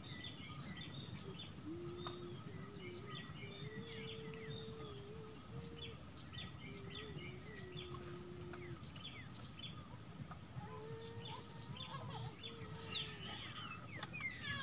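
Outdoor garden ambience: a steady high-pitched insect drone with scattered short bird chirps, a faint wavering low hum that comes and goes, and a falling whistle near the end.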